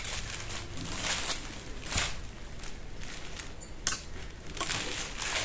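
Saree fabric rustling and swishing as it is unfolded and spread out by hand, with a few sharper crinkles, clearest about two seconds in and again near four seconds.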